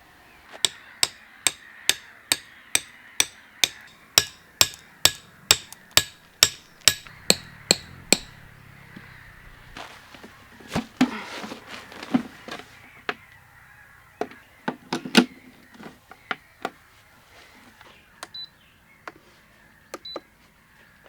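Hammering: a steady run of about twenty quick, ringing blows, two or three a second, that stops about eight seconds in. After a pause come a few slower, irregular knocks and thuds.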